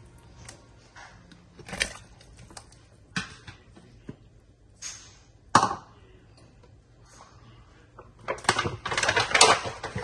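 A series of separate sharp clicks and knocks, the loudest about five and a half seconds in, with a quick cluster of them near the end.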